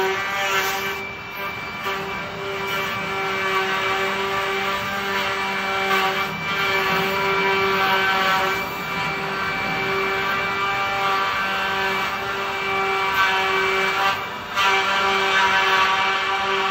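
Andreoni Standard 12 multi-spindle wood copy-milling machine (pantograph) running, its spindles whining steadily at one high pitch while the cutters mill wooden blocks. The cutting noise swells and eases every few seconds, with brief dips.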